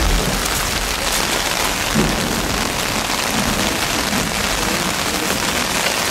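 Steady hiss of water, even and unbroken, with a brief low rumble at the start and a small knock about two seconds in.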